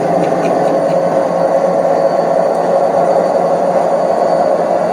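Washing machine on a fast spin cycle, a loud, steady, really high-pitched racket from the spinning drum, which the owner puts down to its ball bearings.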